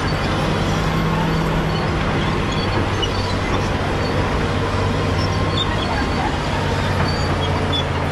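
Caterpillar D7G bulldozer's diesel engine running steadily with a low, even drone.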